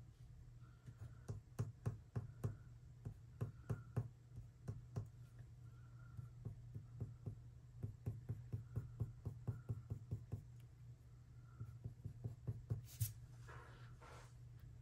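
Colored pencil working on watercolor paper in short, quick strokes, each a soft tick, a few a second in irregular runs. A faint low hum runs underneath.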